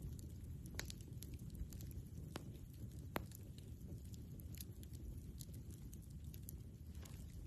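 Wood campfire crackling, with scattered sharp pops and snaps over a low steady rumble; the loudest pop comes about three seconds in.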